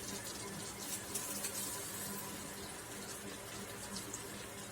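Spice masala with ginger-garlic paste sizzling in oil in a pan over a low flame: a steady gentle hiss with faint crackles and a low hum underneath.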